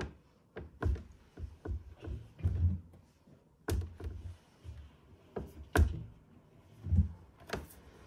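Wet laundry being unloaded by hand from a Hoover H-Wash 300 Plus front-loading washing machine: an irregular series of soft thuds and sharper knocks and clicks as the clothes and hands bump the drum and door.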